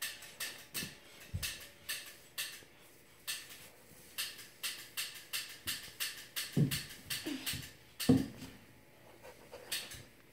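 A small child wiping a tile floor with a cloth: a run of short swishing rubs, about two or three a second. Near the middle come a few short grunts.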